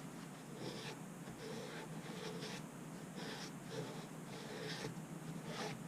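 Faint, irregular rubbing and scraping from hands working the parts of a hydraulic lift cylinder during its rebuild.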